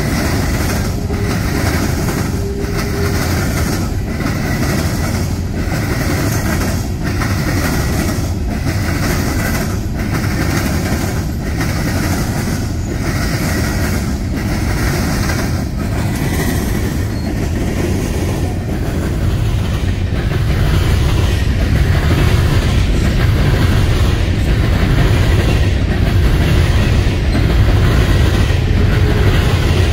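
A long freight train of hopper cars rolling past close by: a steady rumble of steel wheels on rail with a regular clickety-clack about once a second. It grows a little louder about two-thirds of the way through.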